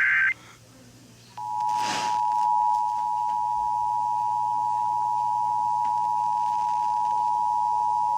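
Emergency Alert System broadcast: a burst of SAME header data tones cuts off just after the start. After about a second's gap, the EAS attention signal begins, two steady tones (853 and 960 Hz) sounding together and holding without change, which heralds the spoken flash flood warning that follows.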